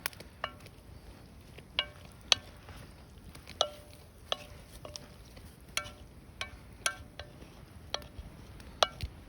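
Metal spoon knocking and scraping against a metal pan while stirring chili, about a dozen sharp clinks at uneven intervals, each with a short ring from the pan.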